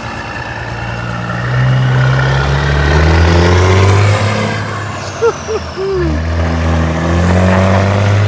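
Peterbilt 379's Caterpillar C15 diesel engine being revved: the pitch climbs for about three seconds, eases back, then climbs again near the end. A few short squeaky chirps come in the middle.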